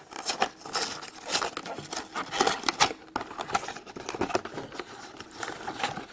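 Surprise-egg packaging being handled, crinkling and rustling in many small, irregular crackles.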